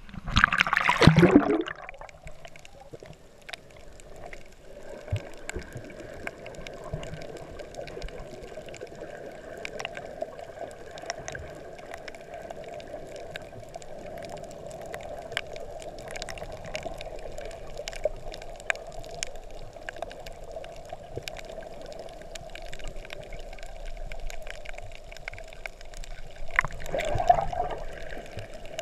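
Loud splashing about a second in as the action camera goes under the water, then muffled underwater noise heard through the camera's waterproof housing: a steady wash of water with many scattered sharp clicks. The water noise swells louder again near the end.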